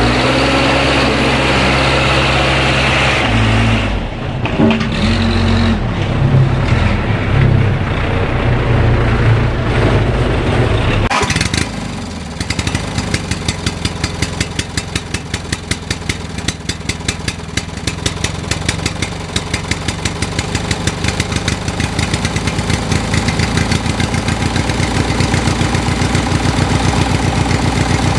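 A vehicle engine running. It drones steadily for about the first eleven seconds, then settles into a regular chugging beat that grows a little louder toward the end.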